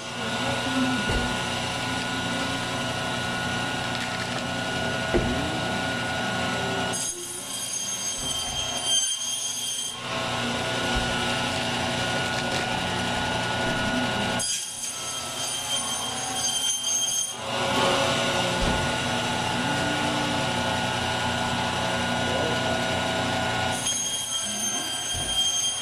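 Vertical meat bandsaw running with a steady whine of several tones while its blade cuts through lamb racks and rib bone. The sound changes a few times as racks are fed through the blade.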